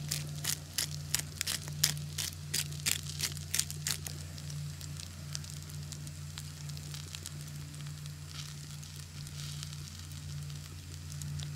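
Crackling and sizzling from a wood fire in a firebox stove and food frying in a hot cast iron pan. Sharp pops come three or four a second for the first few seconds, then settle into a steadier sizzle with scattered fainter crackles.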